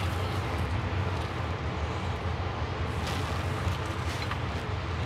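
A steady low hum with hiss, from some machine or background noise that cannot be identified. It is broken by a few faint clicks about three seconds in and again a little after four seconds.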